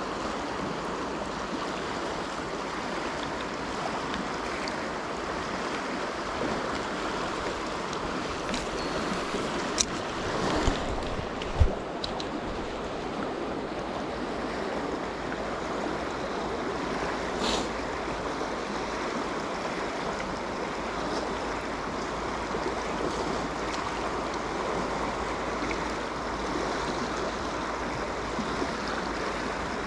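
Mountain stream water rushing steadily over rocks. A few short sharp clicks and knocks come in the middle.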